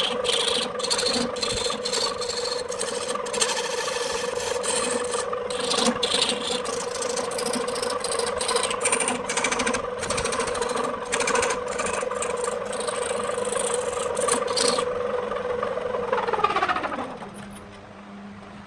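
Wood lathe running with a steady motor hum while a tool scrapes against the spinning wood-and-epoxy bowl. Near the end the scraping stops, the lathe is switched off, and its hum falls in pitch as it spins down.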